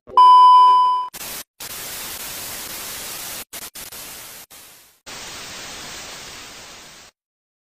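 A TV test-pattern beep: one steady high tone for about a second. Then TV static hiss, breaking off in short gaps and fading once before it comes back, as a glitch-effect outro sound.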